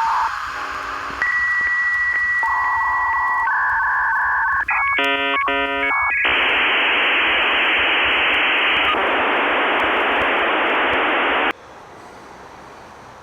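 Dial-up modem connecting: steady handshake tones, a burst of rapidly switching tones, then a loud hiss lasting about five seconds that cuts off suddenly near the end.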